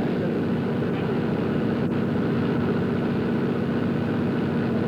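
Steady low engine rumble, running evenly without change.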